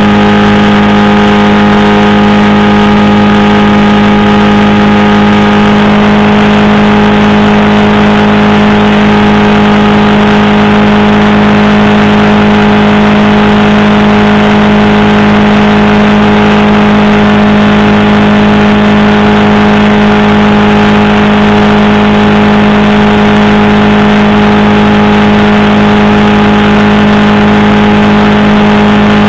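Powered parachute's engine and pusher propeller running steadily in flight, very loud and close to the microphone: one constant low hum with many overtones, no change in pitch.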